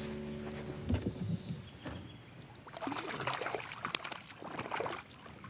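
Small splashes and knocks at a kayak's side as a hooked fish is brought in, with irregular crackling of water from about the middle onward.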